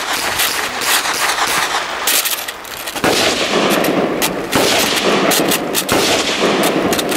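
Automatic gunfire: scattered shots at first, then about three sustained full-auto bursts of a second or so each from about three seconds in.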